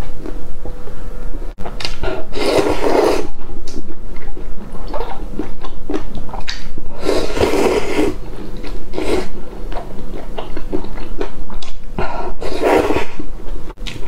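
Thick noodles being slurped, three long slurps about five seconds apart, with chewing and small wet mouth clicks between.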